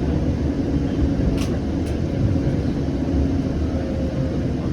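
Siemens S700 light-rail vehicle running, a steady low rumble with a faint hum. There are two short hisses about one and a half and two seconds in.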